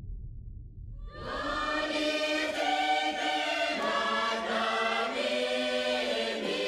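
Background music with choir-like voices singing sustained notes, fading in about a second in over a low rumble.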